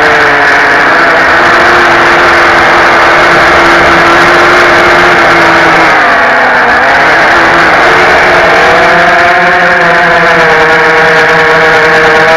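Racing drone's DYS Samguk 2300KV brushless motors and propellers whining loud and close, heard from the onboard camera. The pitch is steady at first, dips about six seconds in and climbs again a couple of seconds later as the throttle changes.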